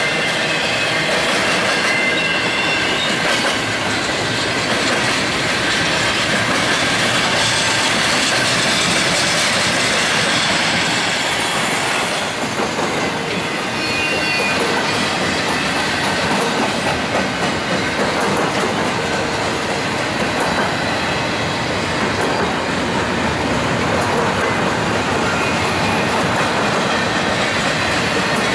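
Double-stack intermodal container train rolling past at speed: a steady loud rumble of freight car wheels on the rails, with clicking over the rail joints and a few short wheel squeals.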